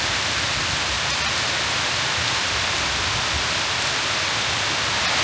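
Heavy rain pouring down in a downpour, a steady, dense rush of water.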